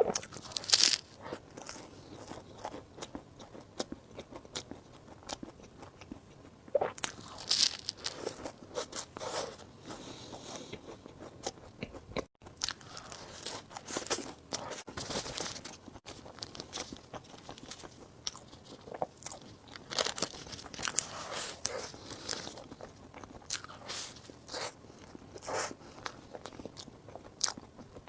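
Close-miked eating sounds: a person biting and chewing soft desserts, with many small wet clicks and smacks and louder bites coming in clusters every few seconds.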